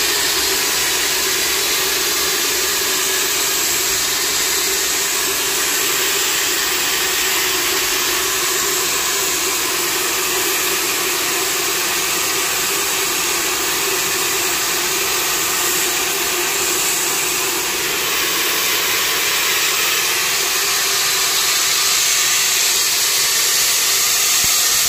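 Carbon dioxide fire-suppression system discharging into a CNG compressor room: a loud, steady hiss of gas rushing out.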